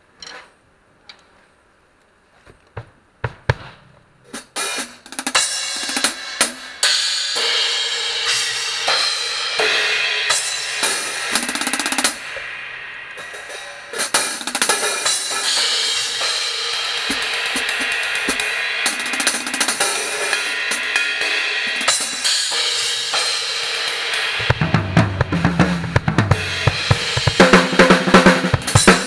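Drum kit played solo with Anatolian cymbals. A few light strokes come first, then continuous cymbal-heavy playing from about four seconds in, and louder playing with heavy bass drum near the end.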